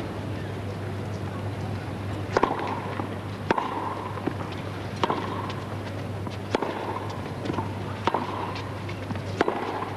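Tennis balls struck by rackets in a rally: about six sharp hits roughly a second and a half apart, each with a short ringing ping, over a low steady hum.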